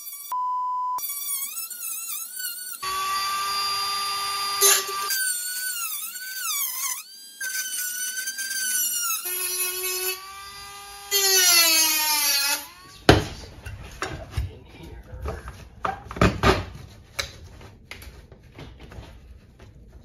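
High-speed rotary tool with a cut-off wheel cutting a slit in a steel garage door panel: a high whine that dips and wavers in pitch under load, in several runs with abrupt stops. From about two-thirds of the way in come irregular clicks and knocks of metal being handled.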